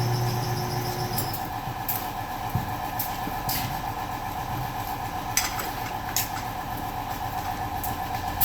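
A shop machine motor running steadily with a whine. A deeper hum drops away about a second in, and a few sharp clicks come through.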